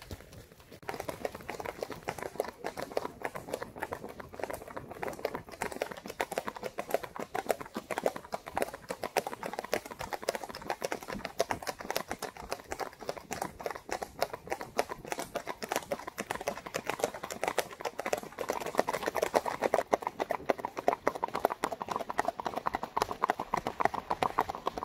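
Tennessee Walking Horse mare's hoofbeats: a fast, steady clip-clop that starts about a second in and grows louder near the end.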